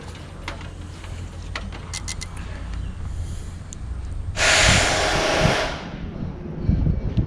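A loud burst of hiss lasting about a second and a half, a little past halfway, over a steady low hum, with scattered clicks and a few low thumps near the end.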